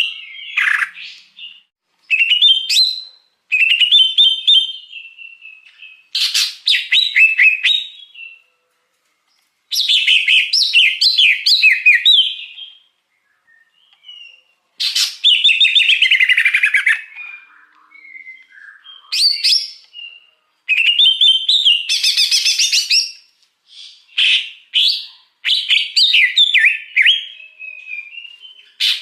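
Greater green leafbird (cucak hijau) singing: bursts of rapid, varied chirps and whistled notes, each phrase lasting one to two seconds, with short pauses between phrases.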